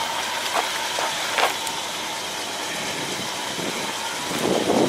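Car engine running steadily at low revs, with a couple of light clicks and a swell of sound near the end.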